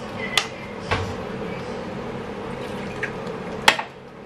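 Metal ladle stirring a pan of chicken curry in simmering coconut milk: the thick liquid sloshes while the ladle clinks against the pan a few times, the sharpest clink near the end, with a dull knock about a second in.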